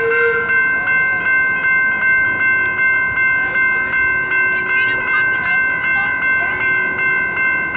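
Two General Signal electronic railroad-crossing bells ringing steadily, about two strokes a second, warning of an approaching train.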